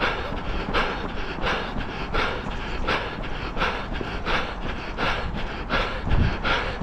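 A runner's footsteps at a steady race pace, about three a second, with hard panting breath.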